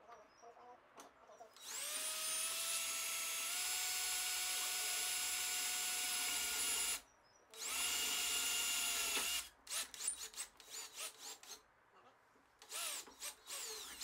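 Cordless drill with a long 3/8-inch (9.5 mm) bit drilling through into a boat's center console: the motor whines steadily for about five seconds, picking up speed slightly once, stops briefly, runs again for about two seconds, then gives a string of short trigger bursts that each spin up and die away.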